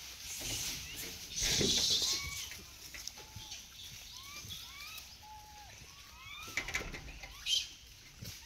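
Birds chirping with many short, arched whistled calls throughout. A brief loud rustle comes about a second and a half in, and a few sharp clicks near the end.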